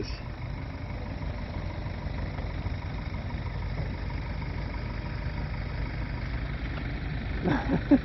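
Steady low hum of a vehicle engine idling nearby, not the parked wheel loader, which is switched off.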